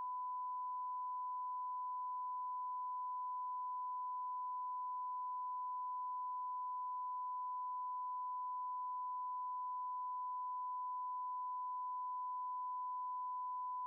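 A steady, high electronic beep tone, a single pure pitch held unchanged at an even level, like a bleep or test tone laid onto the soundtrack.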